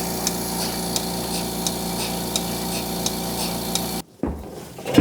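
Milking machine's vacuum pump running with a steady hum and about three pulsator clicks a second, then switched off suddenly about four seconds in.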